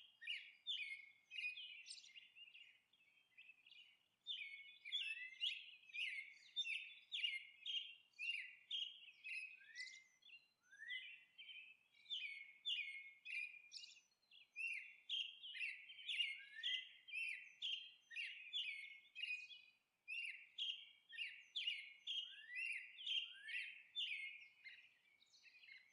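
Faint chirping of small songbirds, a quick run of short chirps at about two a second, with a pause of about two seconds near the start.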